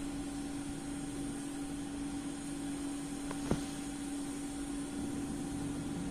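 A steady mechanical hum with one clear pitch over a background hiss, and a single sharp click about three and a half seconds in.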